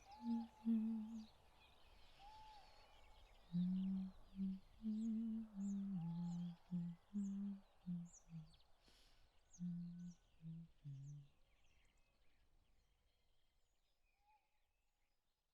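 A woman humming a slow lullaby in short held notes that step up and down and sink lower toward the end, stopping about 11 seconds in. Under it runs a forest ambience of small birds chirping, which fades out near the end.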